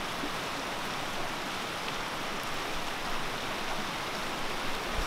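Muddy floodwater rushing steadily down a shallow creek channel.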